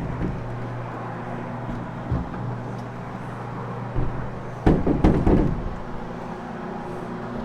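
Carpet cleaning machine running with a hog's hair fiber pad scrubbing the carpet, its motor humming steadily. About five seconds in there is a brief cluster of loud knocks and thumps.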